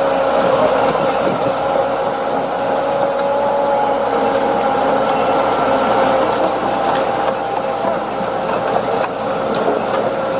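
Heavy diesel machinery running steadily, with a steady whine over the engine noise.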